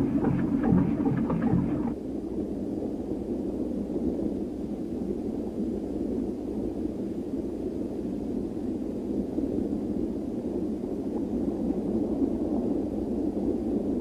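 Steady, muffled rushing noise of water heard from underwater. It follows about two seconds of a rhythmic pulsing sound that cuts off abruptly.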